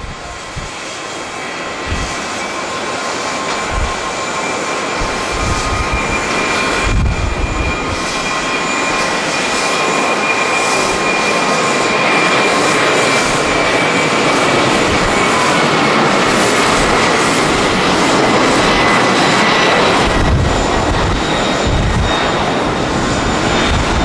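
Twin-engine Boeing 767 jetliner at takeoff thrust: a steady jet roar with a high whine that grows louder as it rolls down the runway and climbs away, the whine sinking slightly in pitch later on. Gusts of wind buffet the microphone now and then, most in the last few seconds.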